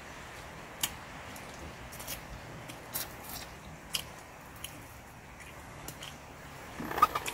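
Scattered sharp clicks and small crackles of fingers picking apart grilled fish and handling shells while eating, with a louder cluster of clicks near the end, over a steady faint background hiss.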